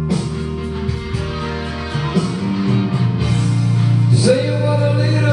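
Music with sustained guitar chords ringing, a new chord struck about every two seconds.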